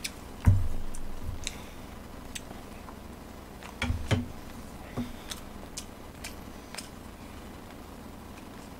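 Chopsticks and a spoon clicking now and then against a stainless steel rice bowl and dishes while eating. There are dull knocks about half a second in and a pair about four seconds in.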